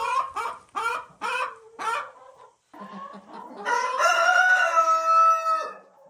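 Rooster crowing close by: a run of four short calls falling in pitch, then one long held note that cuts off near the end.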